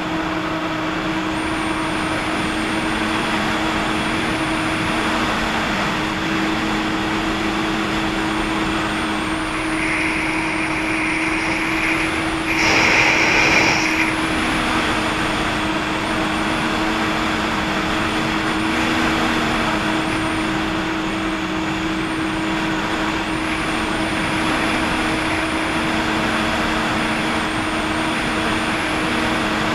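Jet ski engine running steadily with a constant hum and a faint high whine, over a steady rushing noise. About halfway through, a louder burst of noise lasts a second or so.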